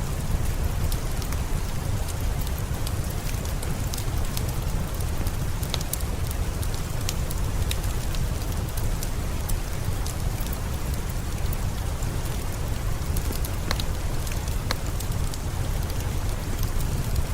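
Steady rain over a low rumble, with scattered sharp crackles from a wood fireplace.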